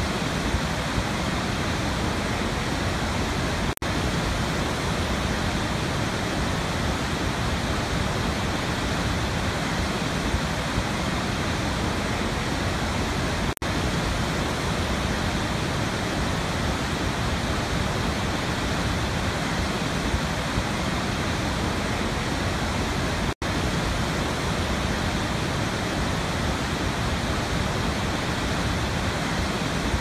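A large waterfall with heavy white water plunging into a gorge makes a dense, steady rush. The rush is broken by three brief dropouts about ten seconds apart.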